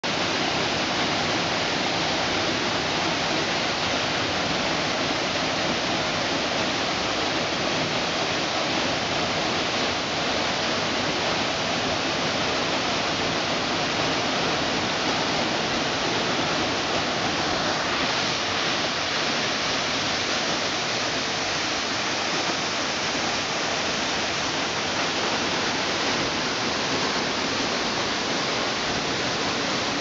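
Waterfall pouring into a rocky pool: a steady, unbroken rush of falling water.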